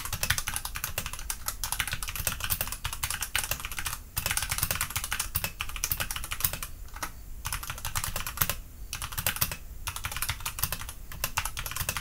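Fast typing on a Redragon K530 Draconic 60% mechanical keyboard with Outemu brown tactile switches: a dense, continuous clatter of key clicks with a few short pauses.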